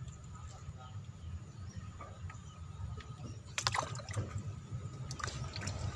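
Faint water splashing and trickling over a steady low rumble, with a few sharp knocks and rustles about three and a half seconds in and again near the end.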